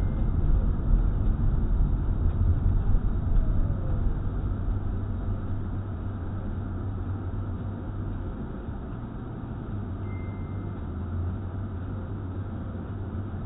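Car cabin noise picked up by a windshield dashcam: engine and tyre rumble while driving in town. It gets quieter after about four seconds as the car slows behind a braking car ahead.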